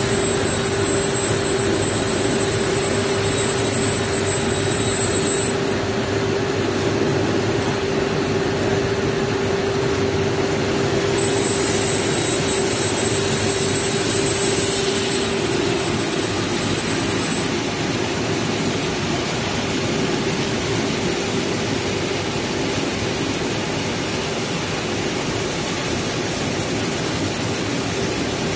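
CNC wide belt sander running while it sands rubber strips fed through on its conveyor: a steady rushing noise with a low hum that fades out about halfway through. A thin high whine comes and goes, in the first few seconds and again for several seconds in the middle.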